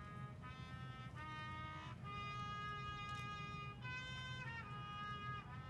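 A trumpet playing a slow melody one note at a time, with long held notes and a brief downward slur in the middle, over a steady low hum.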